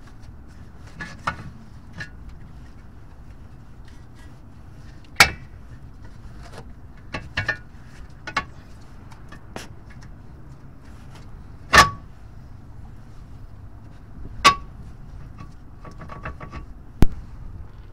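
Sharp metal clinks and knocks at irregular intervals, a few with a brief ring, as hand tools and the CV axle's metal parts are handled at the front steering knuckle. A steady low rumble runs underneath.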